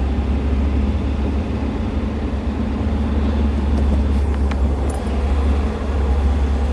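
2004 Jeep Wrangler's 2.4-litre four-cylinder engine running steadily with a low drone. A few faint clicks come a little past halfway.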